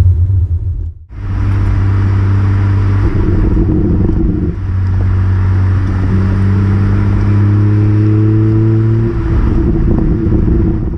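BMW M2 Competition's S55 twin-turbo inline-six heard at the tailpipes of its stock exhaust while driving. A steady drone, then the pitch climbs gently under light acceleration over a few seconds in the second half before easing off.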